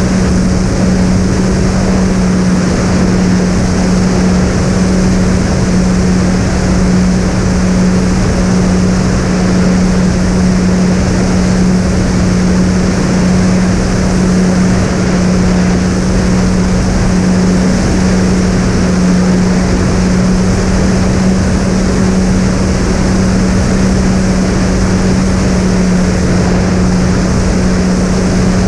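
Steady drone of a twin-motor electric fixed-wing plane's brushless motors and propellers at cruise, one unchanging tone under rushing wind noise.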